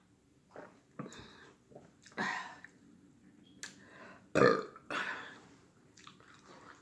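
A person burping: two big burps, one about two seconds in and a louder one about four and a half seconds in, with a few smaller sounds around them.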